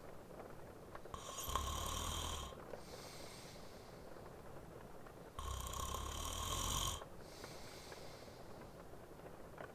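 A man snoring in his sleep: two snores, each about a second and a half long and about four seconds apart, with softer breathing between them.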